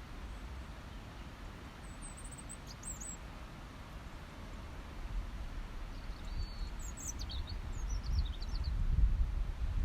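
Songbirds chirping in short, high calls, a few near the start and a busier run in the second half, over a steady background noise. A low rumble builds up and gets louder toward the end.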